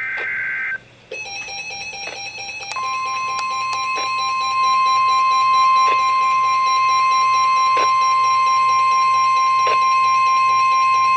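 The last burst of a NOAA Weather Radio SAME digital header, a short two-tone data screech that ends under a second in. A receiver's pulsing electronic beep alarm follows, and about three seconds in the steady 1050 Hz Weather Radio warning alarm tone joins it and holds, marking a warning-level alert. A few static clicks break in.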